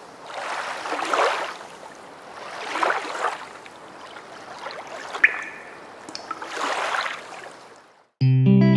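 Swells of washing water, like waves rolling in and drawing back, three times, with a short bright ping about five seconds in. Guitar music begins near the end.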